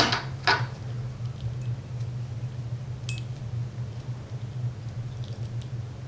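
A few sharp clicks and light rattles of a ceramic power resistor and clip-on test leads being handled, the loudest at the start and about half a second in, another about three seconds in. Under them runs a steady low hum.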